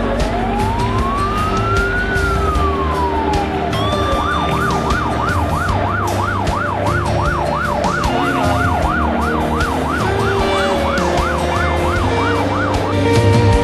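Fire engine siren, heard from inside the cab, giving one slow rising and falling wail, then switching about four seconds in to a fast yelp of about three cycles a second. It makes a brief slow sweep near the end before the yelp resumes, with the truck's engine running underneath.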